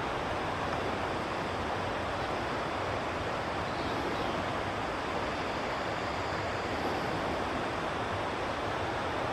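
Steady rushing of a fast-flowing river, an even noise that does not change.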